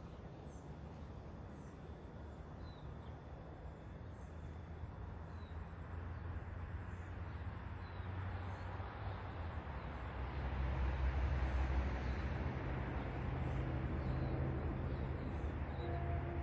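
Distant low engine rumble growing slowly louder, most plainly from about ten seconds in, with faint bird chirps over it.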